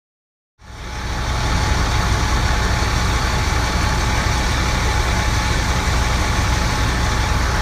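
Aerial ladder fire truck's engine running steadily, with a faint steady whine over the low rumble; it fades in about half a second in.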